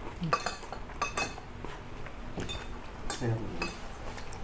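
Cutlery clinking against plates and dishes during a meal: several light, separate clinks spread through a few seconds.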